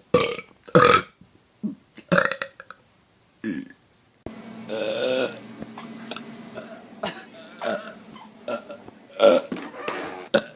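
A person burping loudly, several short separate belches in a row. About four seconds in, over a noisier background, more belches follow, the first of them longer and drawn out.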